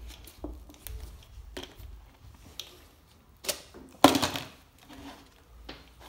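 Thin plastic drink bottle being handled and pulled apart: a string of plastic crinkles and clicks, with one louder crackle about four seconds in.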